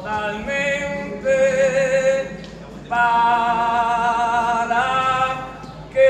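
An elderly man singing unaccompanied: long held notes with vibrato, in two phrases with a short pause between them and a new phrase starting at the very end.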